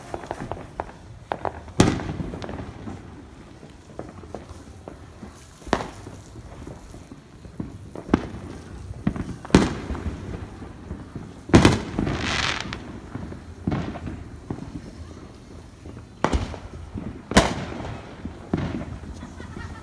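Fireworks going off: a string of sharp bangs a few seconds apart, with smaller pops between them. About twelve seconds in, a crackling hiss follows one bang for about a second.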